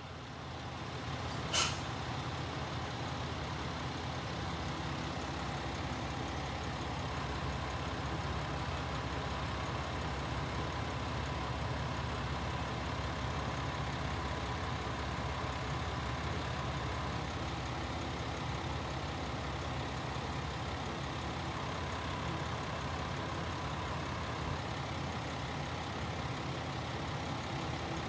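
Diesel railcar engine idling steadily while the train stands stopped, a low even hum with a faint steady higher tone over it. A single short click sounds about one and a half seconds in.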